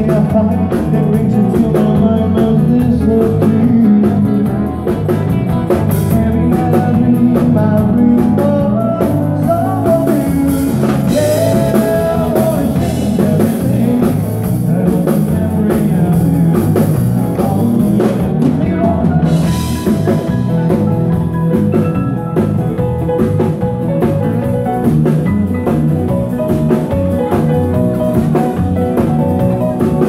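A live band playing rock-and-blues dance music, with electric guitar and drum kit over a steady beat.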